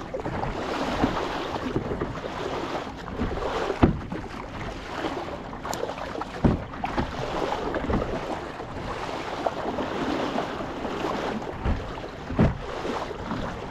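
Sea kayak being paddled through open water: water splashing and sloshing around the hull with wind noise on the microphone, and several sharp water slaps a few seconds apart.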